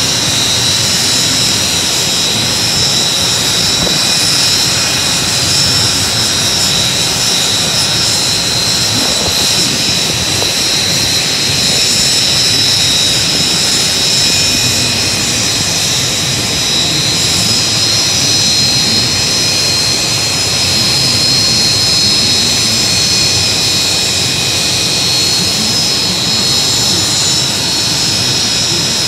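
An aircraft turbine engine running steadily: a constant high whine over a rushing roar, with no change in pitch or level.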